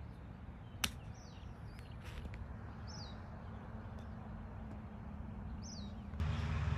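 A golf club strikes a ball off bare dirt and roots with one sharp click about a second in. A bird gives a short falling chirp three times over a low outdoor hum, and a louder low rumble sets in near the end.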